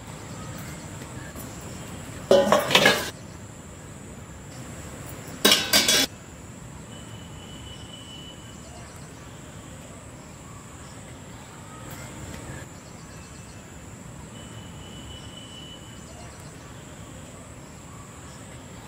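Steel cooking pots and utensils clanking in two short bursts of several knocks each, about three seconds apart, against a quiet steady background.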